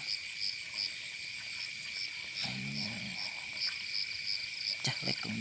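Night insect chorus: a steady high drone with short chirps repeating about two or three times a second above it. A brief low hum comes in about two and a half seconds in, and there is a single click near the end.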